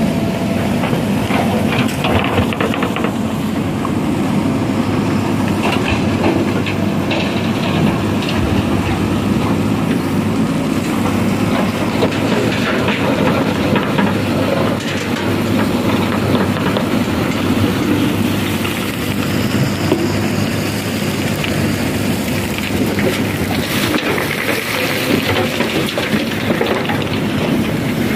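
JCB 3DX backhoe loader's diesel engine running steadily under hydraulic load as the backhoe arm digs, with stones now and then clattering against the loader's bucket and the steel body of a tipper truck.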